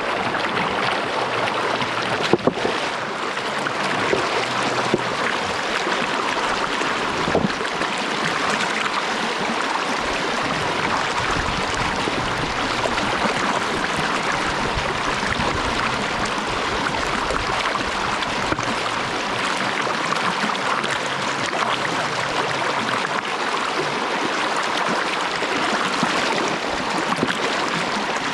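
Creek water flowing in a steady rush, with a couple of short knocks about two and seven seconds in.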